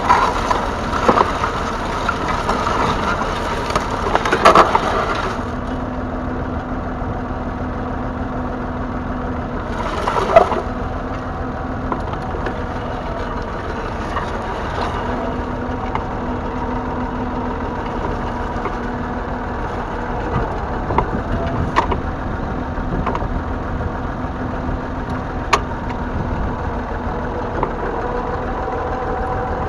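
1968 Massey Ferguson 135's 2.5-litre three-cylinder diesel engine running steadily, with scattered sharp knocks and clanks; its note comes through clearer near the end.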